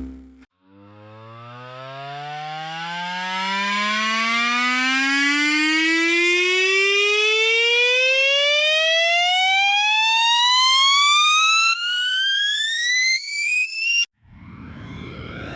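A single whine, rich in overtones, rising smoothly and steadily in pitch for about thirteen seconds as the vehicle's electric drive speeds up. It wavers briefly, then cuts off abruptly. A new rushing noise starts to build near the end.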